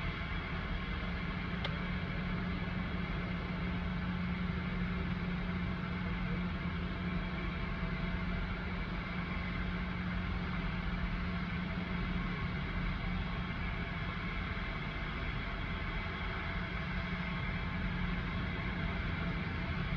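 Steady low mechanical hum with a constant low tone, unchanging in level and pitch.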